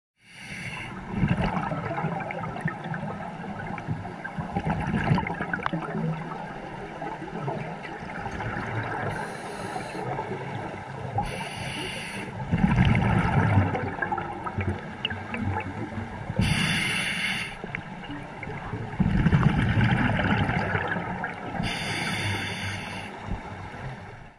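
Scuba breathing heard underwater: a regulator hisses through four short inhalations, alternating with louder gurgling bursts of exhaled bubbles.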